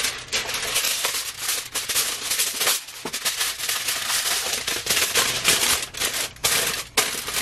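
Aluminum foil crinkled and crackled by hand as it is wrapped and pressed into shape for lining an air fryer, a dense run of crackles and rustles with a brief lull about three seconds in.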